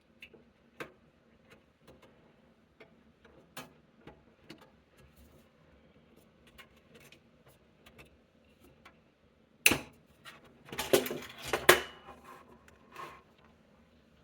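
Light scattered clicks and taps of hands handling the HP M01 desktop's case and parts during disassembly, then a louder run of clatter and knocks about ten seconds in.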